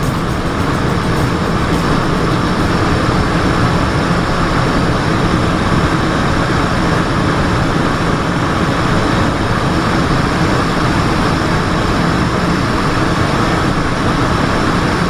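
Steady cabin noise of a Cessna Citation XLS in flight: its twin turbofan engines and the airflow over the fuselage, heard from inside the jet.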